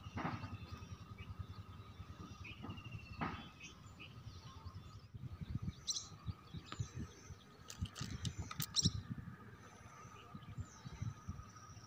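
Birds chirping now and then over an outdoor background, with wind rumbling on the microphone. Several short chirps come close together about six seconds in and again around eight to nine seconds.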